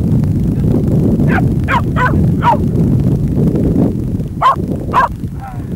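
A dog barking: about six short barks, four in quick succession and then two more a couple of seconds later, over a steady low rumble.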